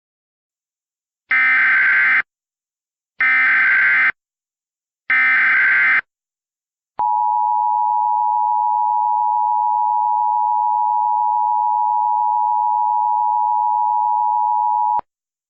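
Emergency Alert System tones opening a new alert. First come three one-second bursts of screeching SAME digital header data. About a second later a steady attention-signal tone sounds for about eight seconds and cuts off sharply.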